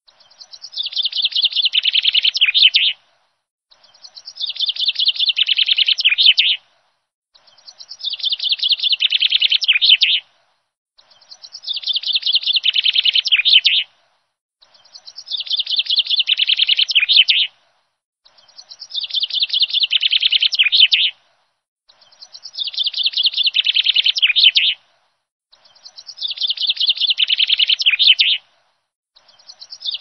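A songbird's song: a rapid run of high chirping notes about three seconds long that builds in loudness and cuts off sharply, repeated identically about every three and a half seconds with dead silence between, a looped birdsong recording. No waterfall noise is heard.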